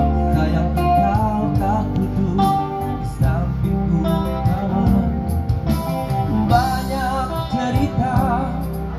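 A man singing into a handheld microphone with guitar accompaniment, his voice sliding and wavering between notes.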